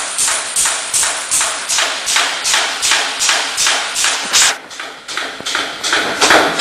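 Automatic punching press stamping teeth into a band saw blade strip, each stroke a short noisy clack in an even rhythm of nearly three strokes a second. About four and a half seconds in the strokes turn fainter for a second, then come back loud.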